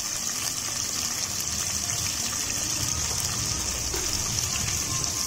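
Tomato pieces and green chillies sizzling steadily in hot oil in a wok, as part of a cumin and bay-leaf tempering.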